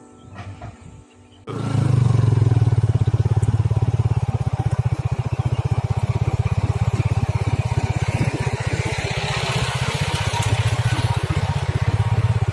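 Heavy-equipment diesel engine running steadily with a fast, even low pulsing, cutting in abruptly about a second and a half in.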